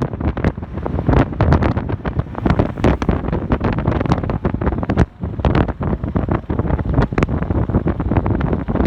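Heavy wind buffeting the microphone: a gusty, rumbling roar with rapid crackles and pops as the level jumps, briefly easing about five seconds in.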